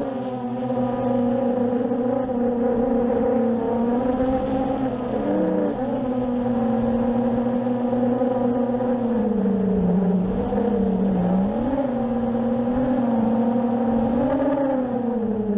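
A 7-inch FPV racing drone's motors and propellers whining, heard from on board, the pitch steady for stretches and dipping and rising with the throttle, most clearly about five and ten seconds in and again near the end.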